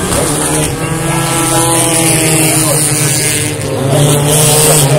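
Touring race cars' engines running at speed on the circuit, one steady engine note with many overtones, growing a little louder near the end.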